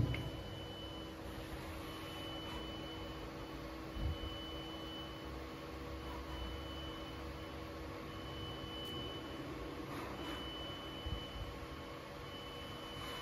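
CNC turn-mill lathe running: a steady motor hum with several steady tones, a high-pitched tone that keeps cutting in and out, and a knock at the start and another about four seconds in.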